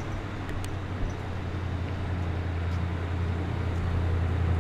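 Steady low V8 engine note from an approaching car, which looks to be a Ford XY Falcon GT, growing slowly louder as it nears.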